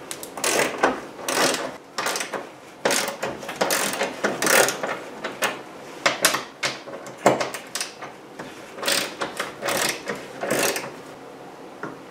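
Socket ratchet wrench clicking in short repeated bursts, stroke after stroke, as it backs off the nuts on a hatch reinforcing plate. The bursts stop near the end.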